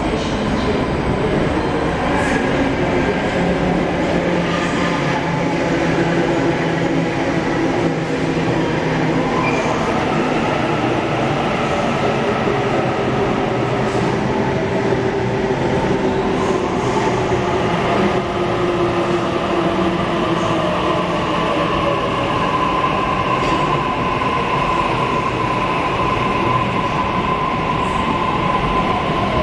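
Double-deck Sydney Trains electric train running past the platform: steady wheel-on-rail rumble with the whine of its traction motors, which rises in pitch midway and holds a steady tone toward the end while lower tones slide down.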